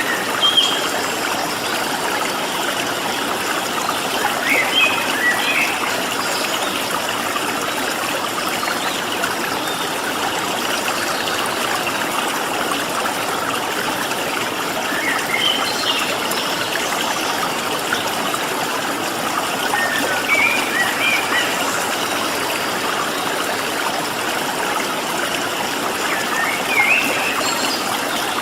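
A stream running steadily over rocks, with wild birds giving short chirps about five times over the water noise.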